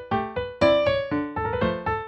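Background music: piano notes struck in quick succession, each ringing and fading before the next.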